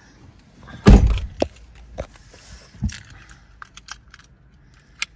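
Car door shutting with a heavy thump about a second in, then scattered light clicks and a jingle of keys as the ignition is switched on.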